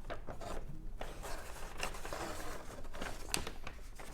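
Paper rustling and crinkling as a folded model-kit instruction sheet is handled, with a few brief ticks.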